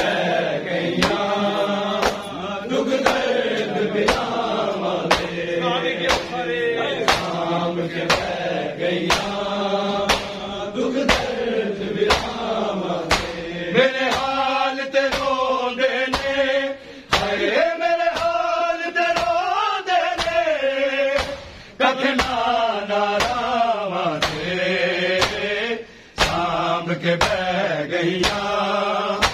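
Shia matam: a man chanting a mourning noha over a steady rhythm of open hands slapping bare chests, a little more than one slap a second. The chant breaks off briefly a few times between lines while the slapping keeps its beat.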